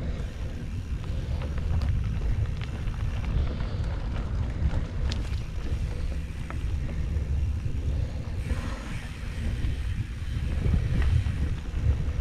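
Wind buffeting the microphone of a mountain bike rolling along a dirt singletrack, a steady low rumble with scattered light clicks and rattles from the bike and trail.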